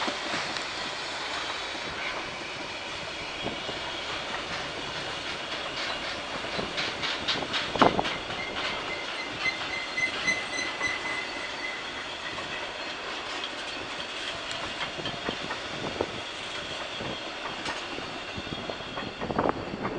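Freight train container wagons rolling past: a steady rumble of steel wheels on rail, with clicks as the wheels cross rail joints. A thin high squeal runs for a few seconds around the middle, and the rolling stops as the last wagon passes near the end.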